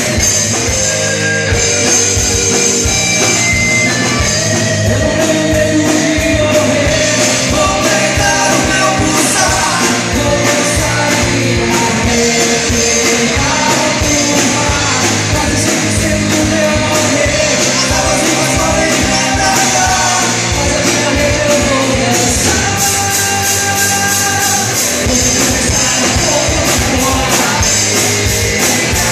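Live hard-rock band playing loudly, with drums, electric guitars and a singer.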